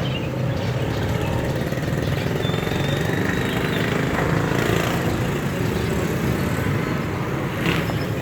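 A steady low mechanical rumble, like a running engine. A faint, thin high tone is heard for about a second, starting about two and a half seconds in.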